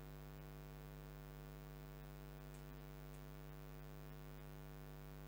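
Faint, steady electrical mains hum with a few faint clicks now and then.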